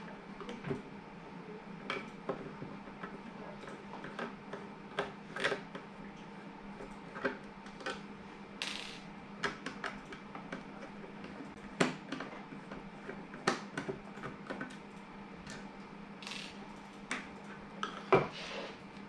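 Hard plastic enclosure parts clicking and knocking as they are handled and fitted together by hand, with a few brief scraping rubs and the loudest knock near the end. A faint steady hum runs underneath.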